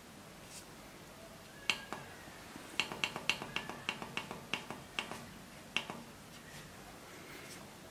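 Control-panel keypad buttons on a yarn hairiness tester pressed repeatedly, each press a short sharp click. A single click comes first, then a quick run of about a dozen clicks, roughly four a second, over about three seconds.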